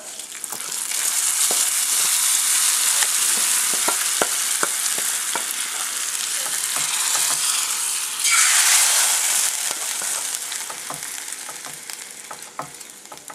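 Hot coconut-oil tempering of mustard seeds, shallot, dried red chilli, curry leaves and roasted grated coconut sizzling as it hits a pan of simmering pumpkin curry. A louder surge of sizzling comes about eight seconds in, then it dies down near the end, with the clicks of a spoon scraping and stirring.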